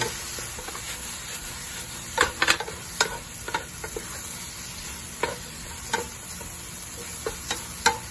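Mussels and sliced peppers sizzling steadily in a frying pan while a wooden spatula stirs and tosses them. Irregular knocks and scrapes of the spatula against the pan come in a cluster about two to three and a half seconds in, then a few more later.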